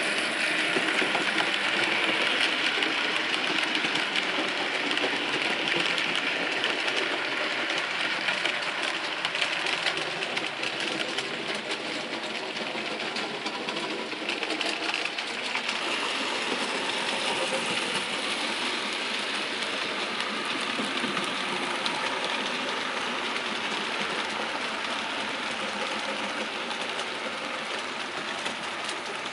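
Bachmann S100 0-6-0T model tank locomotive hauling coaches on a model railway layout: a steady motor whirr with fine rapid clicking from the wheels on the track. It is loudest at the start and grows a little fainter over the first ten seconds or so as the train draws away.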